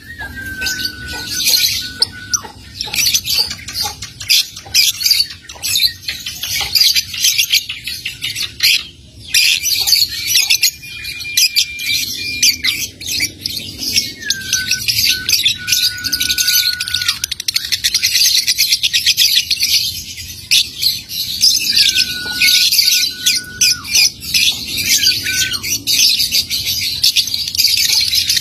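Young lovebird's rapid ticking chatter, the 'ngetik' typing call, running on into a long, unbroken, fast chatter ('ngekek') in the second half. A few short, flat whistle-like notes come in now and then.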